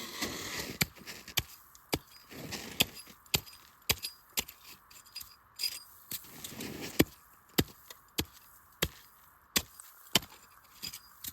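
Hatchet chopping through the top layer of lake ice, a steady run of sharp strikes about two a second. It is cutting through the upper ice above a layer of overflow water so the auger can finish the hole.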